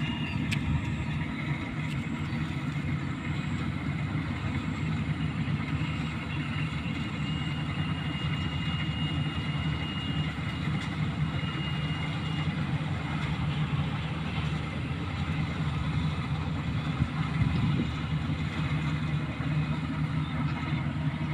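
Kubota DC-35 combine harvester's diesel engine running steadily, with a faint high whine for several seconds in the middle.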